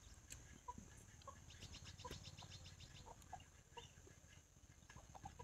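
Near silence with faint, scattered bird calls, and a quick run of rapid high chirps about a second and a half in.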